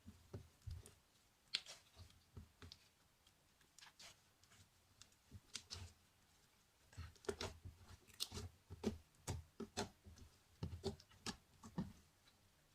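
Slime being kneaded and mixed by hand: quiet, scattered squishes and small clicky pops, coming more often in the second half.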